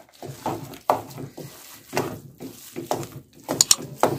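Wooden spoon stirring and scraping thick semolina halwa with dry fruits around a metal pan, in strokes about twice a second, with a few sharper knocks near the end.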